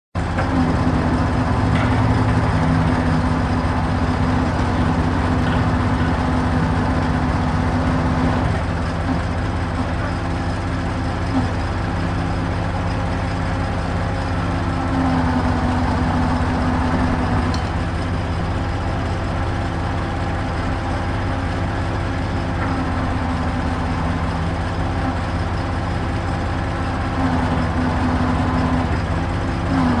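Truck crane's diesel engine running steadily while the crane works. Its note lifts and strengthens for several seconds at a time, near the start, around the middle and near the end, as the load on the engine rises.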